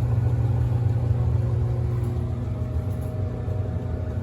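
Daka 521 wood furnace's blower fan and motor running with a steady low hum, growing slightly fainter.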